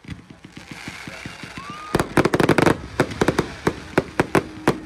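A string of firecrackers going off in rapid succession. Fast, faint pops build up, then about two seconds in a dense volley of loud sharp bangs breaks out and carries on as separate cracks.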